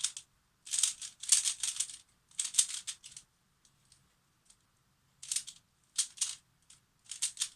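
A plastic Pyraminx puzzle being turned in quick runs of moves, making a dry clicking rattle, with short pauses between runs. The puzzle has not yet been lubricated.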